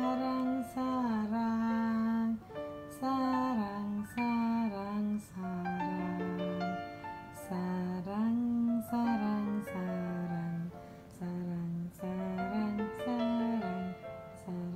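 Background music: a slow melody of held notes, several sliding up or down into the next, in short phrases with brief gaps between them.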